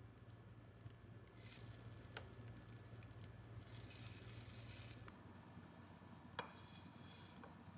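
Faint sizzling of stuffed bread toasting in a frying pan over a low hum, with a light spatula tap about two seconds in. The hum stops about five seconds in, and a single clink with a short ring follows.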